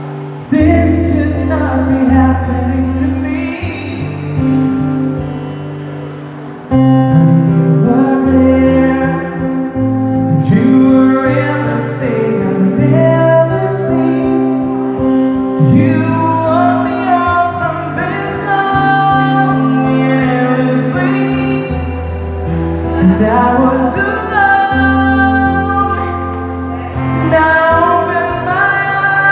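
Music: a slow ballad with guitar and a singing voice, growing louder about seven seconds in.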